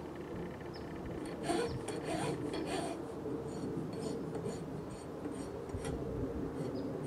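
Hand file scraped along the edge of Formica laminate in short strokes, a quick run of them about a second and a half in, then lighter ones, trimming off the lippage where the laminate overhangs at the joint.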